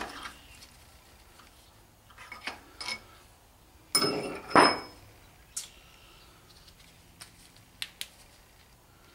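Scattered metallic clinks and clanks of hand tools and hardware being handled while fitting a truck's transmission mount, with a louder pair of clanks about four seconds in and a few sharp single ticks after.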